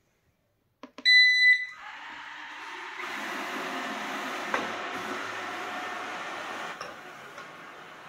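Coredy R650 robot vacuum switched on with a button click, giving one loud, half-second high beep, then its brush and suction motors start and run steadily, growing louder about three seconds in as it drives off across a tiled floor. It is running on a newly fitted replacement battery, which cured its fault of having no power off the dock.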